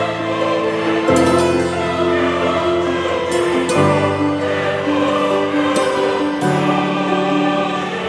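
Background music of slow, sustained choir-like voices holding chords that change every two to three seconds.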